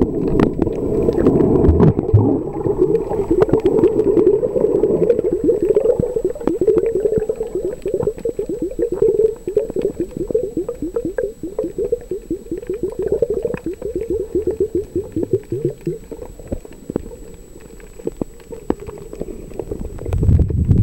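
Muffled underwater noise from a camera below the surface: a dense gurgling wash of water with many quick faint clicks, growing quieter a few seconds before the end. A faint steady high whine sits above it.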